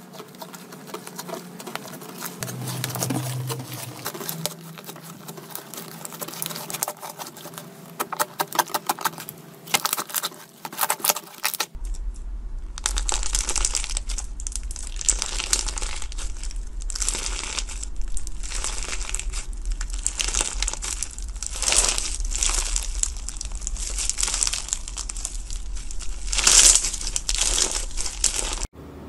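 Hands working slime: first a glittery blue slime stretched and pressed, giving soft crackles and runs of little clicks, then, about twelve seconds in, a crunchy slime packed with clear beads squeezed over and over, giving repeated loud crunching, crinkling bursts. A steady low hum runs under the second part.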